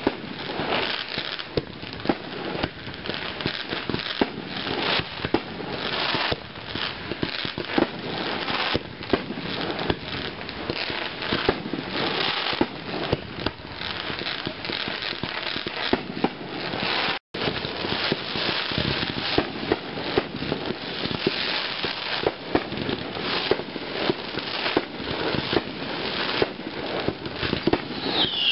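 Fireworks display: a dense, continuous barrage of shell bursts and crackling, with sharp reports several times a second. The sound cuts out for an instant about two-thirds of the way through.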